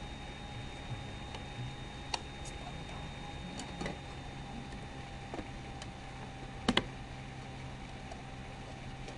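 Scattered light clicks, about ten at irregular intervals, the loudest a quick double click about two-thirds of the way in, over a steady low hiss with two faint steady tones.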